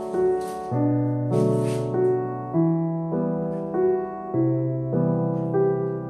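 Background instrumental music: a slow melody of held notes over a bass line that changes about every two seconds, with a short hiss about a second and a half in.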